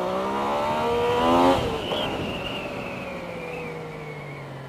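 Yamaha FZ-09 motorcycle's three-cylinder engine pulling hard in first gear, its revs rising steadily for about a second and a half before dropping back and slowly sinking as it eases off.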